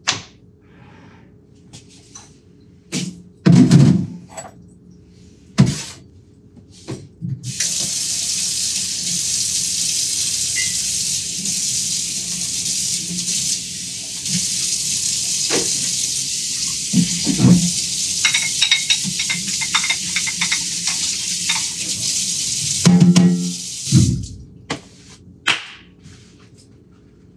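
Water running from a newly installed restaurant-style kitchen faucet into a stainless steel sink, a steady hiss that starts about seven seconds in and stops about fifteen seconds later. Before and after it, clunks and knocks of dishes and a dish rack being handled at the sink.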